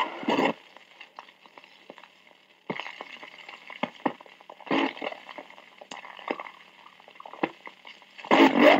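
Crackling static and hiss from the Dallas Police Dictabelt recording of radio channel 2, played back at half speed, with scattered clicks and a few short bursts of louder noise. Near the end a slowed, low voice begins.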